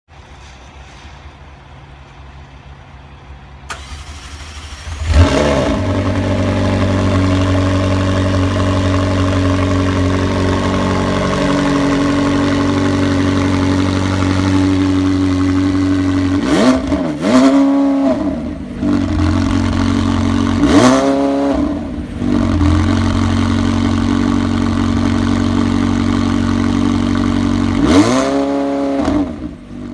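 McLaren 720S twin-turbo V8 with sports exhaust starting about five seconds in with a sharp rev flare, then idling steadily. Later it is blipped in three bursts, the revs rising and falling quickly each time, the last near the end.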